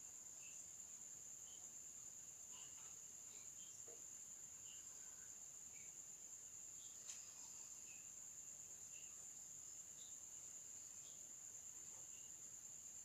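Near silence with a steady high-pitched cricket trill and a few faint chirps. A faint click comes about seven seconds in.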